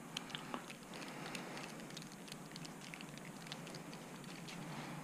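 Faint, scattered small clicks and ticks of a hex driver working screws and small parts being handled on an RC truck's rear suspension.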